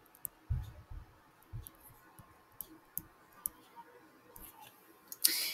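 Faint, irregular clicks and soft taps of handwriting being entered on a screen, with a short hiss near the end.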